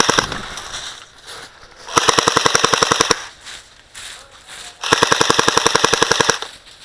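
Airsoft electric gun firing on full auto: a short burst right at the start, then two bursts of rapid shots lasting about a second each, a couple of seconds apart.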